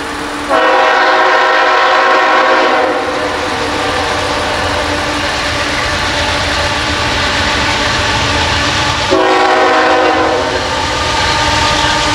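A diesel locomotive horn sounds two long blasts, the second shorter, over the steady rumble and rail noise of a passing train.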